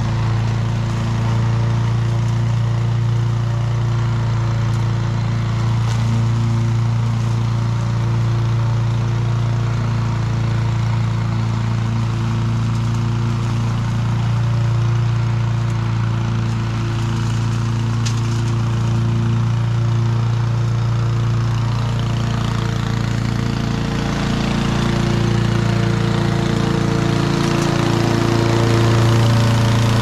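Honda HRC216 commercial walk-behind lawn mower's single-cylinder four-stroke engine running steadily under cutting load, growing louder over the last few seconds as the mower comes close.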